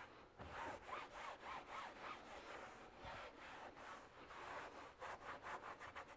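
Shop towel rubbing back and forth over a plastic engine cover, spreading dressing: a faint run of uneven wiping strokes.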